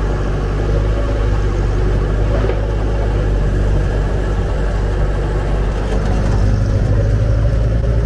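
1972 Jeep's engine running as the Jeep drives slowly along, a steady low drone heard from inside the open canvas-topped cab, getting a little louder near the end.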